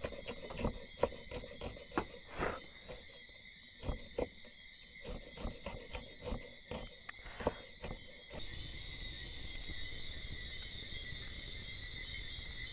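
A knife chopping on a cutting board: irregular sharp knocks, about two a second, that stop after about eight seconds. Steady insect chirring runs underneath, and a steady outdoor hiss is left once the chopping stops.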